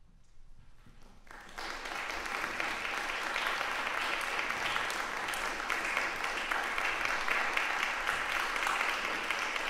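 Audience applauding, starting about a second and a half in after a short hush and then going on steadily.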